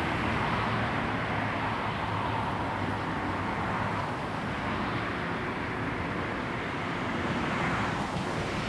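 A vehicle running steadily close by, a continuous rushing noise without a break.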